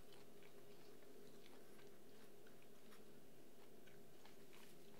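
A person chewing pizza, with small scattered wet clicks over faint room tone with a low steady hum.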